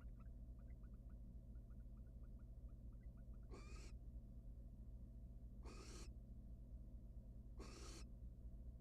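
Barn owl giving three short, harsh hissing calls about two seconds apart, starting a few seconds in, with faint ticking before them.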